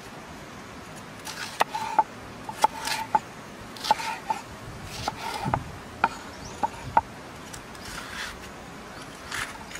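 Kitchen knife slicing a red bell pepper on a wooden chopping board: short crisp crunches as the blade goes through the flesh and sharp taps as it strikes the board, about nine taps at an uneven pace, with a longer gap after about seven seconds.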